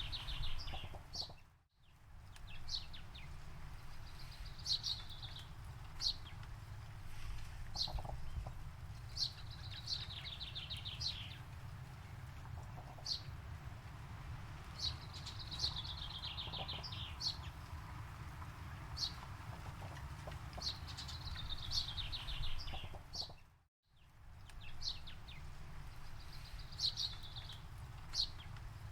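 Forest birdsong: a songbird repeats a falling trill of quick notes, each about a second long, every few seconds, with short single chirps in between. It sits over a low, steady rumble. The sound cuts out briefly twice, about two seconds in and near the end.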